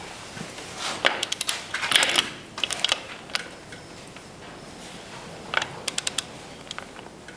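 Click-type torque wrench tightening a transfer-case-to-transmission bolt: clusters of quick ratchet ticks, and the wrench's click as it reaches its 40 foot-pound setting.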